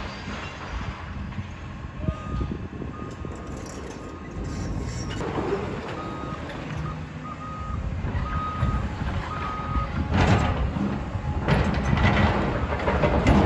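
Heavy equipment's reversing alarm beeping about once a second over a low diesel rumble, with louder surges of machine and rubble noise near the end.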